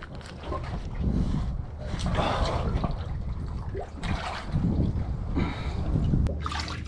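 Seawater sloshing and trickling around a person wading chest-deep while pulling green mussels off a raft, heard close to the water's surface.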